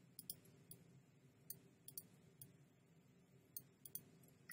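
Computer mouse button clicking faintly and irregularly, a dozen or so clicks with some in quick pairs, over quiet room tone.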